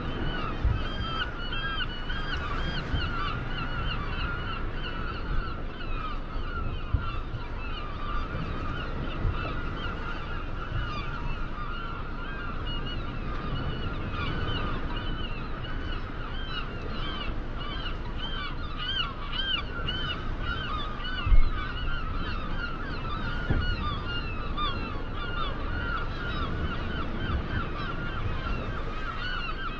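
A large flock of birds calling continuously, many short arching honk-like calls overlapping, over a steady low rumble of wind on the microphone. A brief low bump stands out about two thirds of the way through.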